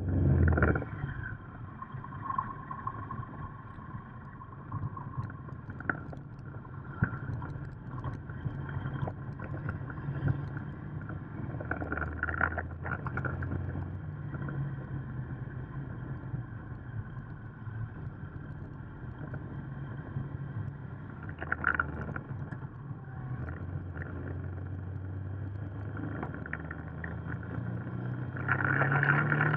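Motorcycle engine running on the move, heard from a camera mounted on the bike, over a steady rush of wind and road noise. The engine note rises and falls as the bike speeds up and slows, and it gets louder near the end.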